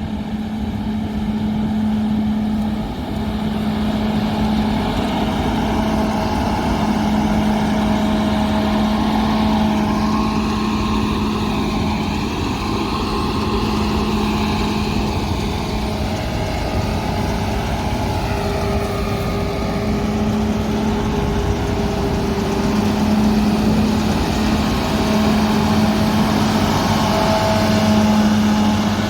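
Combine harvester running steadily during harvest, a constant engine and machinery hum with a strong low tone.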